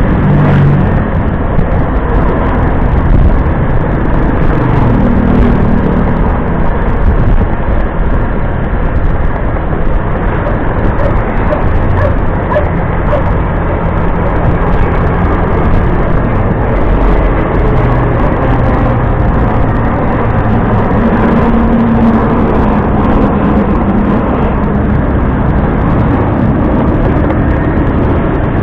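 Riding on a motor scooter in traffic: loud, steady engine and road noise. The engine's hum shifts in pitch now and then.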